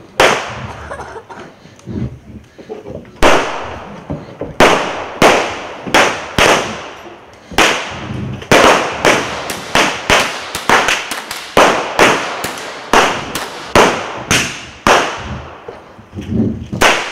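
Revolvers firing blank cartridges in a gunfight: a few single shots at first, then a rapid, irregular volley of several shots a second that thins out near the end, each crack with a short echo.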